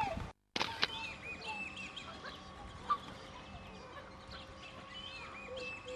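Mixed waterfowl calling: many short, high whistled notes overlapping one another. The sound drops out for a moment just after the start.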